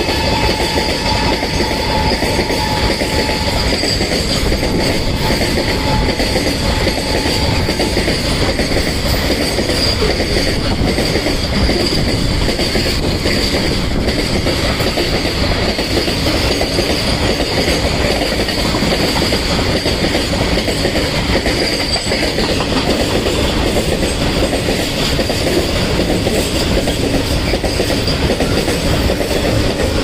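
Freight train's covered goods wagons rushing past at speed, wheels clattering over the rail joints, with a steady high squeal that fades out about three quarters of the way through.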